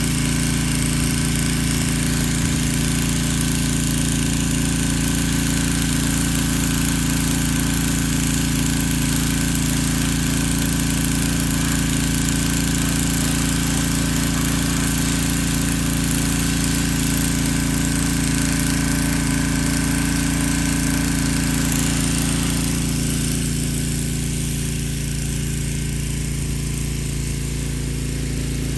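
Pressure washer running steadily, its engine's constant hum under the hiss of the water jet; the hiss thins and the sound drops a little about three-quarters of the way through.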